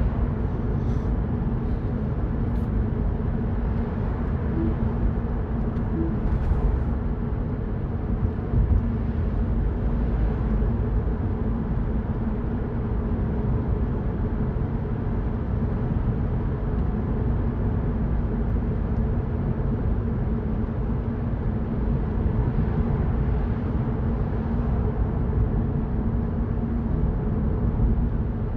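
Mini Cooper Cabrio cruising at a steady speed, heard from inside the cabin: a steady engine hum over tyre and road noise.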